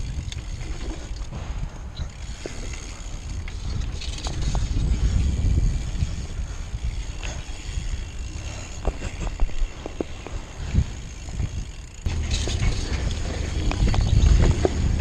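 BMX bike rolling fast over a dirt trail: a constant low rumble with scattered clicks and rattles from the bike, louder for the last few seconds.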